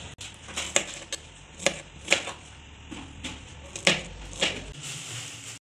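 Kitchen knife slicing strawberries on a plastic cutting board: a series of sharp, irregular taps as the blade goes through the fruit and strikes the board.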